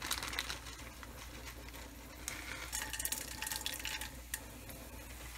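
Dried manathakkali (black nightshade) berries frying in a little oil in a stainless steel pan, with a faint sizzle and clusters of small crackles right at the start and again in the middle.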